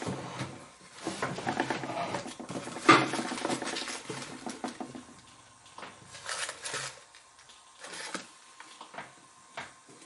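Light clicks and knocks of small metal tools and parts handled at a workbench, with one sharper knock about three seconds in. The clicks grow sparser and fainter toward the end.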